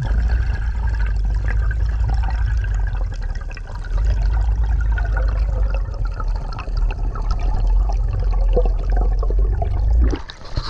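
Underwater sound picked up by a camera in its housing: a steady low rumble of water with faint scattered bubbling and clicks. About ten seconds in the rumble cuts off and a splashy hiss takes over as the camera reaches the surface.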